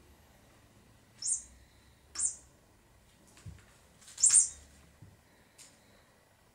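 Three short, high-pitched bird-like chirps, the last one the loudest, with a soft low thump between the second and third.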